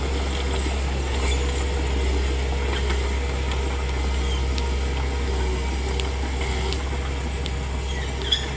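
Komatsu D31P crawler bulldozer's diesel engine running steadily with a low drone, with a few faint clicks and a single sharp knock near the end.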